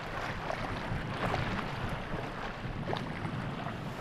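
Steady outdoor background noise with wind rumbling on the microphone.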